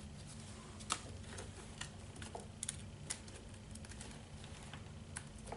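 Handmade cards being flipped through in a storage box: scattered light clicks and taps of cardstock against cardstock, a sharper one about a second in, over a low steady room hum.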